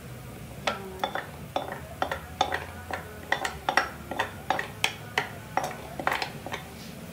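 Wooden spatula knocking and scraping against the rim and sides of a glass bowl as thick custard batter is scraped out, a quick series of clinks about three a second.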